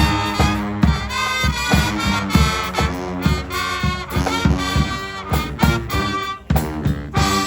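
Street brass band playing an instrumental tune: horns over a steady drum beat.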